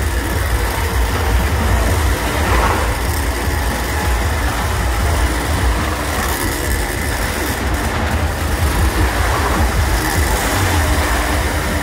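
Motorcycle riding round the wooden wall of a wall-of-death drum, its engine running hard and loud without a break, swelling every few seconds as the bike sweeps past close by.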